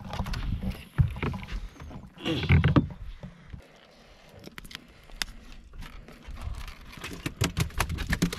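A freshly caught rosy snapper being lifted into a wooden fishing boat and handled on deck while the hook is worked free: irregular knocks and rubbing, a louder bump about two and a half seconds in, then a quick run of sharp clicks and taps in the second half.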